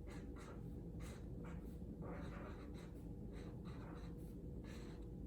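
Handwriting: a run of short scratchy pen strokes as the word "important" is written out.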